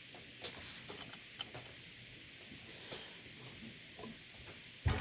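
Faint scattered clicks and taps of chair parts and fittings being handled during assembly, with a louder knock right at the end.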